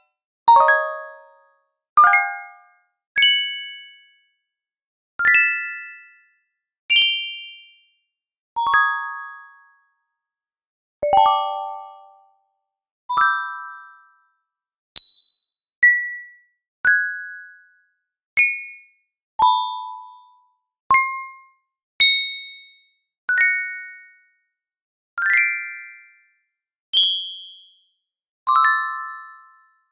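A run of notification bell sound effects played one after another, about twenty in all: each is a short ding that starts sharply and fades within about a second, with brief silences between them and a different pitch each time.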